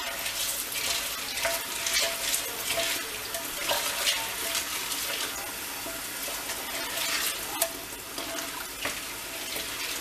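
Hot tap water pouring into a pot of pinto beans while a spoon stirs them. The spoon knocks and scrapes against the pot now and then.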